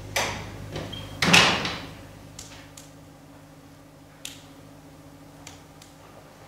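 Wooden panelled door handled and pulled shut. A couple of clicks come first, then the door closes a little over a second in, the loudest sound, with a short echo. A few faint ticks follow.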